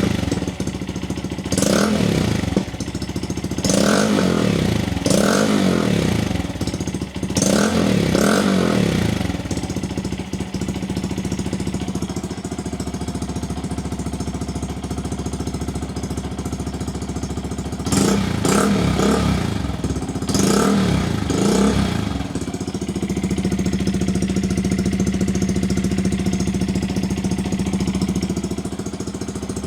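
Honda Monkey 125's single-cylinder four-stroke engine running through a Scorpion titanium exhaust with the baffle in, quite loud. It is blipped in a quick series of revs over the first nine seconds, settles to a steady idle, is revved twice more about eighteen to twenty-two seconds in, then idles again.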